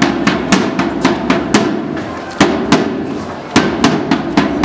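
Side drum beaten with a stick in a steady marching beat, about four sharp strokes a second, with brief breaks after about a second and a half and again around three seconds in.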